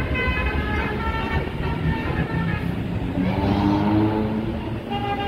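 Bus 'telolet basuri' musical horn playing a tune of short changing notes, over the low rumble of the bus engine.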